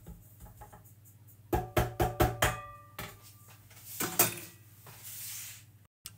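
A metal mixing bowl knocked about six times in quick succession, each knock ringing on, as the last of the flour is tapped out into a food processor bowl. A couple more clunks and a brief rustle follow as containers are put down on the worktop.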